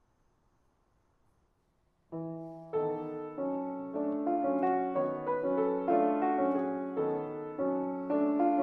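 Near silence, then background piano music starts about two seconds in: a chord followed by a flowing run of single notes.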